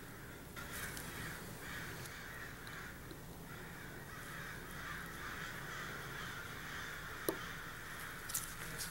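Two sharp little clicks of small tools being handled at a watchmaker's bench, one about seven seconds in and a fainter one a second later, over a steady faint rasping background noise.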